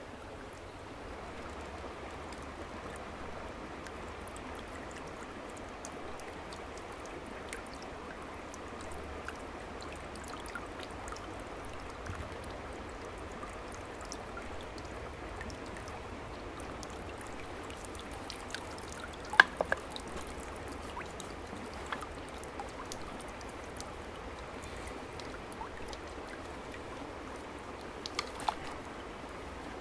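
Steady trickling and pouring of shallow creek water as gourds are dipped and filled, with a few sharp splashes about two-thirds of the way through and again near the end.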